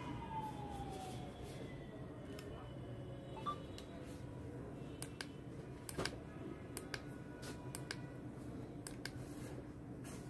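Scattered short clicks from the push buttons of a digital luggage scale being pressed to cycle its units, over a low steady hum. A faint tone slides downward in the first few seconds.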